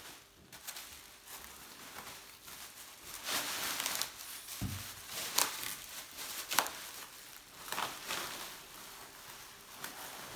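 Rustling handling noise with a few sharp clicks and one dull knock about halfway through, as a bicycle frame is picked up and handled.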